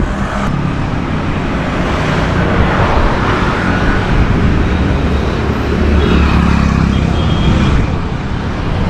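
Motor vehicle noise: a car engine's steady low hum under a constant wash of road and traffic noise.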